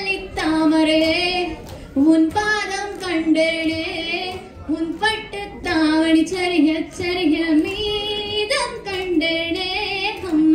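A woman singing solo into a microphone, long held notes that bend in pitch, in phrases with short breaths between them.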